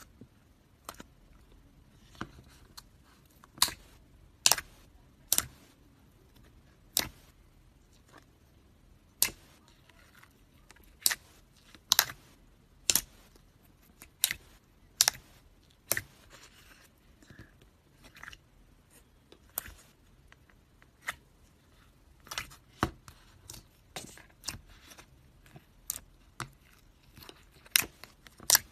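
Slime being squeezed and pressed, giving sharp pops and clicks at irregular intervals, roughly one every second.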